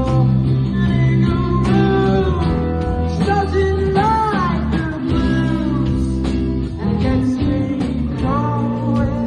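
A blues-rock song with guitar and a steady beat, a melody sliding up and down in pitch over sustained chords.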